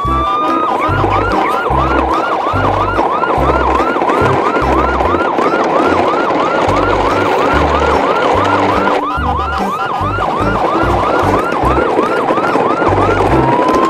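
Electronic siren: a rising wail that turns into rapid repeated whoops, about three a second, over background music with a steady bass beat. The whooping breaks off briefly about nine seconds in and the siren starts over with another rising wail near the end.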